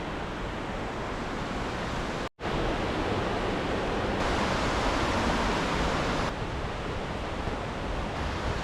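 Steady rushing of river water, with a brief dropout to silence a little over two seconds in.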